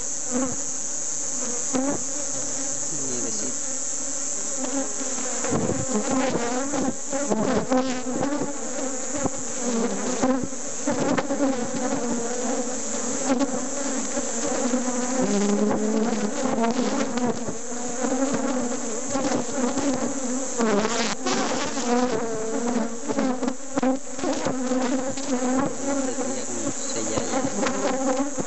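A mass of honeybees buzzing around an open hive: many overlapping, wavering hums, with a few short knocks and clicks.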